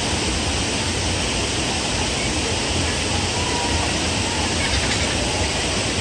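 Steady rushing of a waterfall, a loud even roar of falling water, with faint distant voices behind it.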